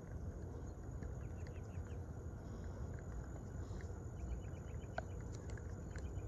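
Outdoor ambience: a steady low rumble, like wind on the microphone, with faint quick bird chirps in short bursts and a few sharp clicks about five seconds in.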